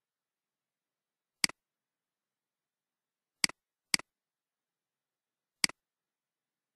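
Four sharp computer mouse clicks against dead silence, the second and third close together. Each is a quick press-and-release click.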